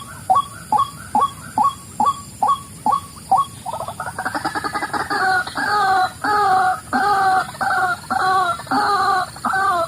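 White-breasted waterhen (ruak-ruak) calling: a steady series of short clucking notes, about two and a half a second, then, from about four seconds in, a louder run of fuller repeated calls at about one and a half a second.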